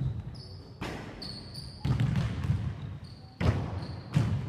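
Basketballs bouncing on a wooden gym floor, with several sharp thuds about a second apart. Short high squeaks of sneakers on the court come between the bounces.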